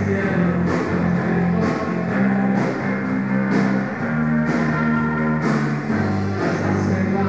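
Rock band playing live at a soundcheck: held bass and electric guitar notes over a drum kit, with a cymbal struck about once a second.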